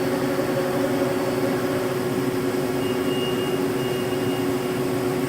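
1995 Mazak Slant Turn 60 CNC lathe powered up, its axes being jogged: a steady machine hum, with a faint high whine from about three seconds in until nearly five seconds.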